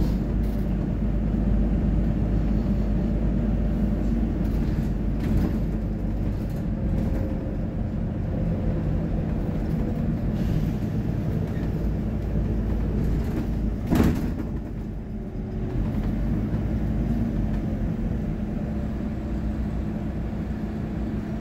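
Double-decker bus under way, heard from its upper deck: a steady low engine and road rumble with a constant hum and a few light rattles. One sharp knock about two-thirds of the way through.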